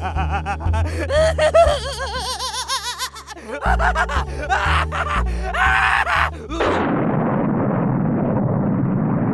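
A cartoon character's maniacal cackling laugh, in wavering bursts over dramatic background music. About seven seconds in the laugh and music stop and a steady rushing noise takes over.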